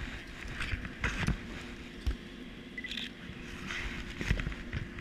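Working ship's deck ambience: a steady machinery hum under wind noise, broken by several sharp knocks and bumps, with a brief high chirp near the middle.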